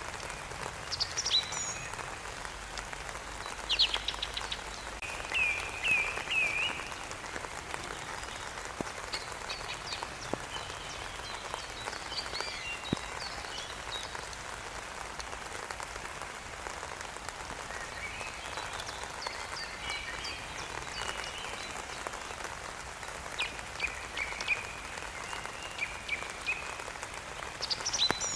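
Steady rain falling, with birds singing over it in intermittent bursts of short, high chirps and quick trilled notes.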